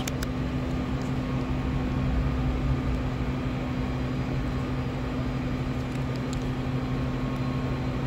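Steady mechanical hum with a constant low tone under an even hiss, like a fan or air-conditioning unit running, with a few faint ticks.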